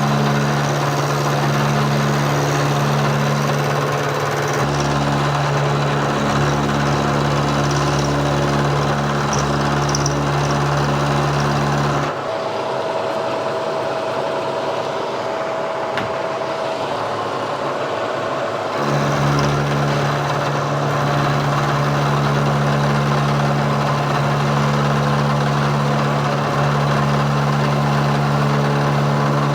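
Milling machine running steadily while a slow, hand-fed heavy cut is taken across steel drill rod. The low hum drops out for about six seconds in the middle, leaving a thinner, higher whine, then comes back.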